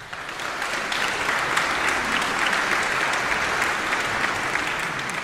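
Audience applauding: the clapping breaks out suddenly out of silence, swells within the first second or so, and then holds steady.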